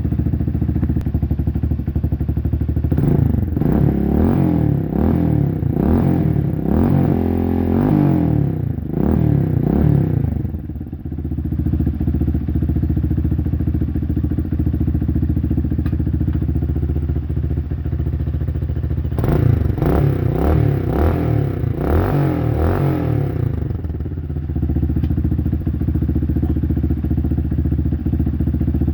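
Motorcycle engine with a homemade silencer idling, blipped through a run of quick revs a few seconds in and again past the middle, each time dropping back to a steady idle.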